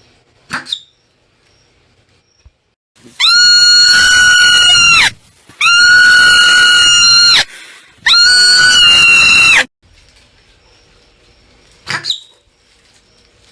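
Marmot calling: three long, loud, high-pitched screams of about two seconds each, held at a steady pitch with short gaps between them, plus a short sharp chirp about half a second in and another near the end.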